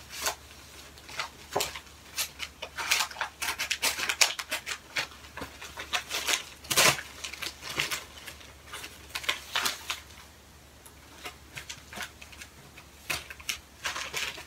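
Scissors snipping through a Jiffy Airkraft padded paper mailer, then the stiff paper envelope crinkling and rustling as it is pulled open and handled, in a run of irregular sharp crackles and clicks.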